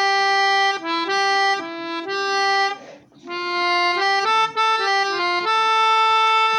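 Glarry melodica, blown through its flexible mouthpiece tube, playing a simple melody one note at a time. Two short phrases with a brief break about three seconds in, the second ending on a long held note.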